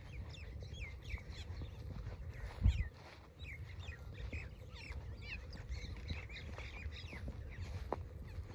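Small birds chirping over and over, short quick calls, over a low rumble, with one dull bump on the microphone about two and a half seconds in.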